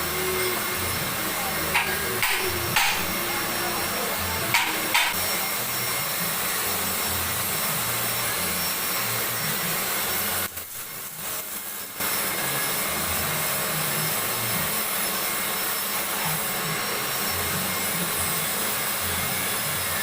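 A workshop machine running steadily with a constant whir, with several sharp knocks in the first five seconds. About halfway through, it drops away for a second or so, then carries on.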